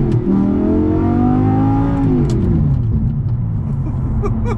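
Audi R8's V10 engine accelerating through the gears, heard from inside the cabin. The note climbs, drops at a gear change right at the start, climbs again for about two seconds, then falls away as the throttle is lifted and settles to a steady lower note.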